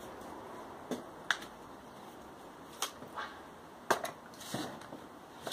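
Handling noise of tools and pieces of wood being picked up and set down: about seven short, irregular knocks and clicks, with no chopping yet.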